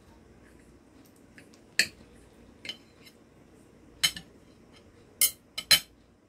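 Metal knife and fork clinking and scraping against a ceramic dinner plate while cutting food: about half a dozen sharp clinks spread out, the loudest near the end.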